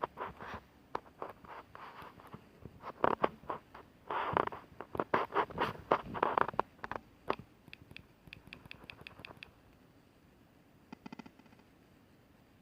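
Handling noise: a run of irregular clicks, taps and scrapes, densest and loudest in the middle, then a short buzz about eleven seconds in.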